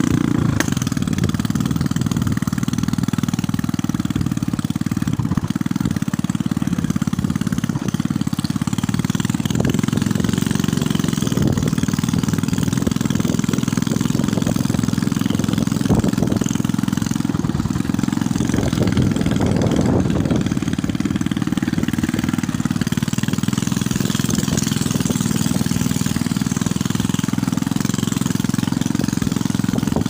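Small motorcycle engine running steadily while riding along, heard from the bike itself, with a steady rushing noise over it.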